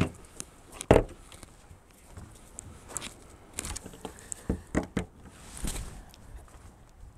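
RV exterior storage compartment doors being opened: a loud clunk about a second in, then scattered lighter clicks and knocks, with footsteps on gravel.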